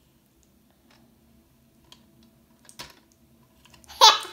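Faint clicks and taps of plastic sticks being worked out of the clear plastic tree of a Catch the Monkey (Tumblin' Monkeys) game, with one sharper click near the three-second mark. Near the end a child bursts into loud laughter.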